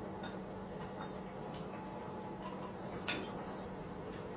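A few light clinks of chopsticks and bowls against tableware, the brightest one about three seconds in, over a steady low hum.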